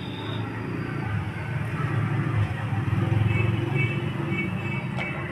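A motor vehicle engine rumbling in road traffic. It grows louder through the middle and eases off, and a single click comes near the end.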